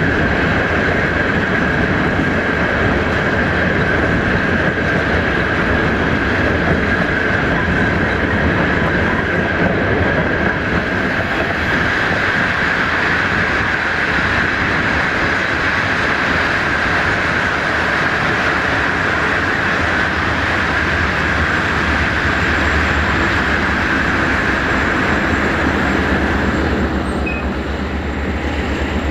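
Freight train wagons rolling past with a continuous steady rumble, a steady high-pitched tone running over it. Near the end the high tone fades and a lower steady hum remains.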